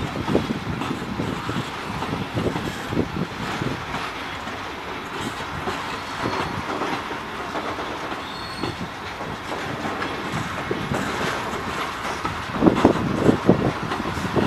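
Loaded bogie log wagons of a freight train rolling past, their wheels clattering over the rail joints. There are a couple of brief faint high wheel squeals in the middle, and the clatter grows louder near the end.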